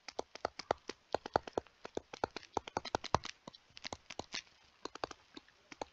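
A stylus tapping and clicking on a tablet's writing surface as an equation is handwritten, in quick irregular strokes of several a second.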